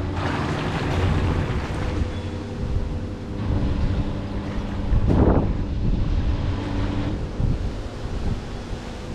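Jacuzzi running just after being switched on: a steady pump motor hum under churning, bubbling water from the jets, with one louder gush about five seconds in.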